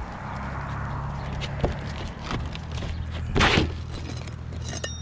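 Scraping and rustling as asphalt shingles and a plastic roof box vent are handled and shoved into place by hand, with small clicks and one louder scrape about three and a half seconds in, over a steady low hum.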